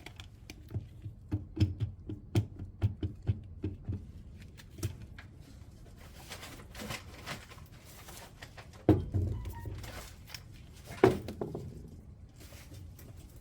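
Irregular clicks and knocks of hand tools being handled, quick and clustered for the first few seconds, then a couple of heavier knocks later on. No impact wrench is running.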